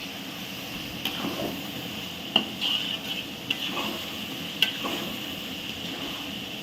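Ladle stirring a tomato-and-dried-chilli masala frying in oil, with a steady sizzle and a few sharp knocks of the ladle against the pot.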